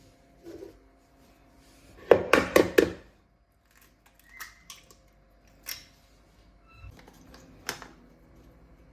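Objects being handled in a small room. A quick run of four or five loud knocks about two seconds in, then a few scattered single clicks.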